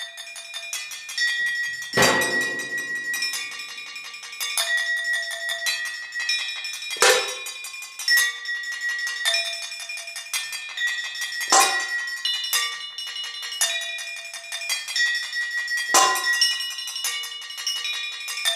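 Solo percussion on struck metal objects: a quick, steady pattern of ringing metallic strikes at shifting pitches, with a heavy accented stroke with a deep thud about every four and a half seconds.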